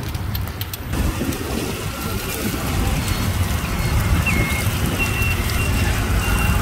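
Hot oil sizzling steadily as dough balls deep-fry in a round multi-cup pan, over a low rumble.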